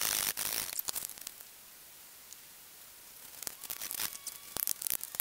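An axe working a felled sapling lying in dry leaf litter. There are bursts of scraping and rustling in the first second or so, a pause, then a quick run of sharp knocks and scrapes near the end.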